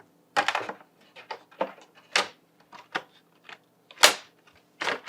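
Irregular knocks, clicks and clatter of the parts of a wooden computer case being handled and fitted back together, with the loudest knock about four seconds in.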